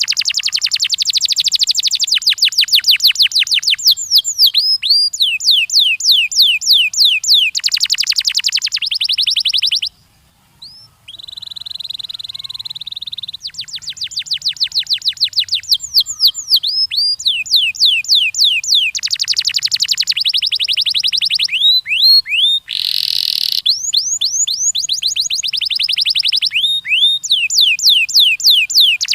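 Domestic canary singing a long song of fast trills, each phrase a rapid run of repeated downward-sweeping notes, changing from phrase to phrase. About ten seconds in it stops briefly, then goes on with a held buzzy phrase before the trills resume.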